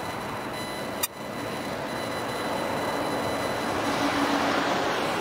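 Boeing 777 jet engines running, a steady rushing roar that grows a little louder in the second half as the airliner rolls. A single sharp click about a second in.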